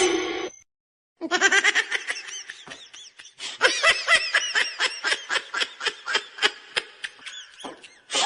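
A person laughing hard in rapid, high-pitched bursts, about four a second, starting a little over a second in after a short pause.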